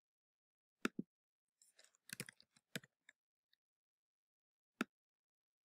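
Faint, sparse clicks of a computer mouse and keyboard with near silence between: two clicks about a second in, a quick run of taps around two seconds in, and one more click near the end.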